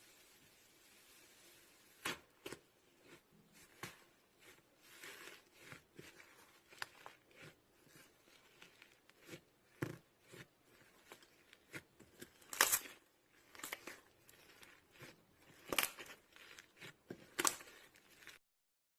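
Slime being played with by hand: irregular sharp pops and crackles, a few much louder than the rest, cutting off suddenly near the end.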